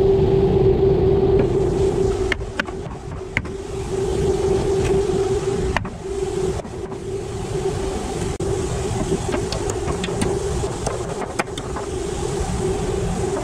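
A steady machine hum over a low rumble, with a few scattered light knocks and clicks from a claw hammer working at a nailed wooden frame.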